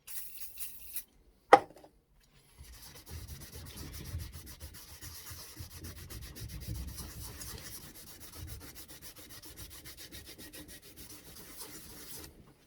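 A magnet's metal surface being scrubbed by hand in fast back-and-forth strokes, cleaning it ready for epoxy resin. A sharp click comes about a second and a half in, and the scrubbing starts soon after and stops just before the end.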